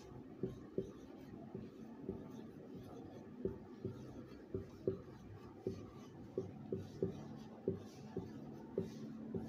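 Marker pen writing on a whiteboard: short, faint strokes and taps coming about two a second, unevenly spaced, as letters are drawn.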